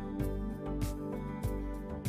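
Background music with a steady beat and held instrumental tones.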